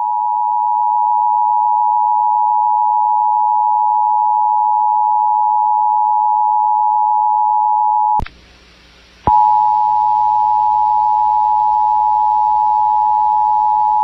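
Emergency Alert System two-tone attention signal from an FM broadcast, a loud steady tone. About 8 seconds in it breaks off with a click and about a second of faint hiss, then resumes unchanged.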